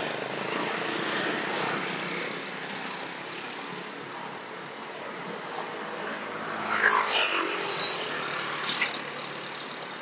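Road traffic of cars and motorcycles passing, a steady rush of engines and tyres. About two-thirds of the way through comes a louder spell of higher, shifting tones and clicks.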